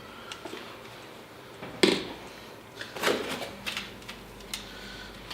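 Handling sounds from unpacking a box: a sharp knock about two seconds in, then a cluster of clicks and light knocks a second later, with a few softer ticks after.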